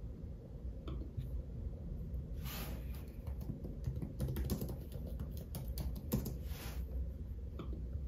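Light clicks and taps of small objects being handled and set down, densest midway, with two short rustling swishes, over a low steady hum.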